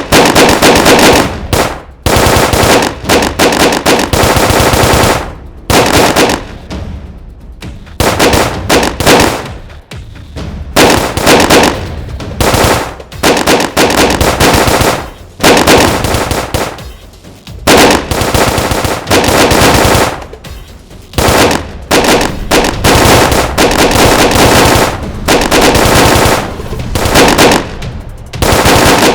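Machine-gun fire sound effects in rapid, loud bursts of one to three seconds each, repeated many times with short gaps between them.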